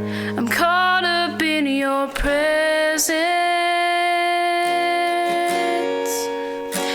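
Worship song: a voice singing over acoustic guitar accompaniment, with a long held note in the middle.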